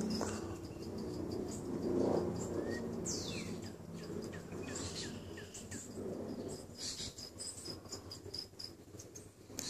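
Insects chirping in a fast, even pulse, with a high falling whistle and a few short bird-like chirps about three seconds in. Low rubbing noises come about two and six seconds in.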